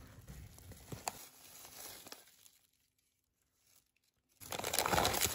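Plastic bags and a foil-lined insulated bag crinkling and rustling as hands rummage through it. The rustling is soft at first, there is a brief silence in the middle, and it turns to loud crinkling near the end.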